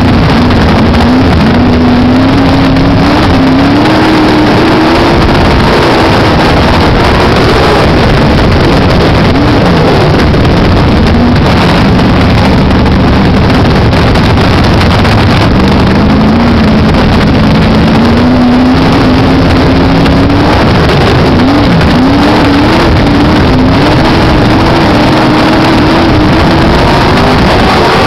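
Onboard sound of a dirt modified race car's engine running hard at speed, very loud. Its note climbs as it accelerates and drops back as it lifts, a few times over.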